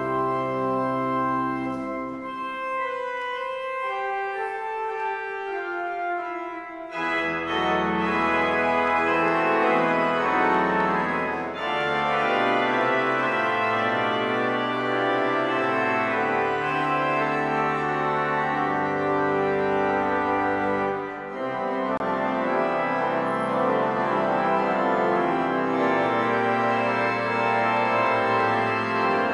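Church organ playing held chords. The deep bass notes drop out for a few seconds near the start, then about seven seconds in the fuller, louder organ comes in with bass notes underneath.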